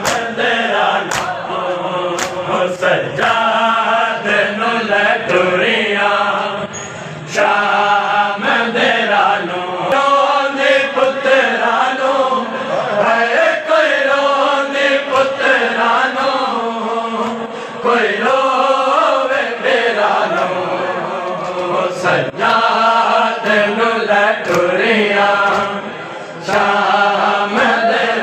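A group of men chanting a noha, a Shia mourning lament, in sung phrases with short breaks. Sharp slaps of hands striking chests in matam sound now and then.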